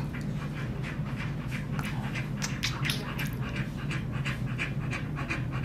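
Dog panting with quick, evenly spaced breaths.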